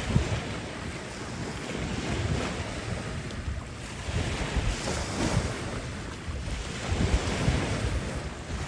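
Small sea waves washing in at the shoreline, swelling and ebbing every second or two, with wind gusting on the microphone in low rumbles.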